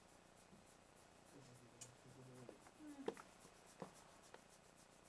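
Near silence, with faint scratching as fingers rub through a Labrador's belly fur, and a few soft clicks.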